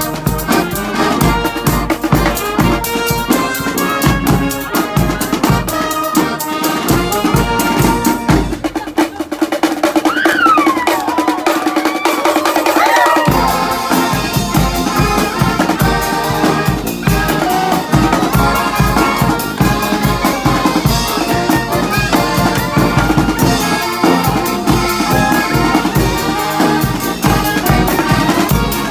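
Brass marching band playing live: horns over drums with a steady beat. About nine seconds in, the drums and low end drop out for a few seconds while high notes slide and waver up and down in pitch, then the full band comes back in.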